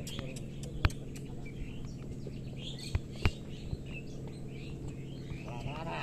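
Birds chirping and calling throughout, over a steady low hum, with a few sharp knocks, one about a second in and two close together around three seconds in.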